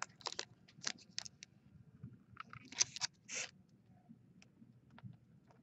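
Trading cards and their pack being handled: a scattering of short, faint rustles and scrapes, busiest in the first three and a half seconds and sparser after.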